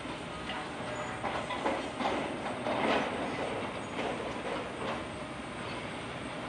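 Wrecking ball battering a brick and concrete building, with a clatter of breaking brick and falling debris that swells to a dense crunching crash about three seconds in.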